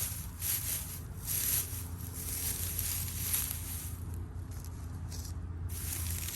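Straw mulch and soil rustling and crackling in irregular surges as potatoes are dug out by hand, over a steady low hum.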